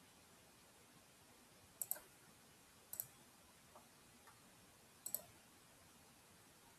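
Computer mouse clicks against near silence. There is a quick pair about two seconds in, a single click about three seconds in, and another quick pair about five seconds in.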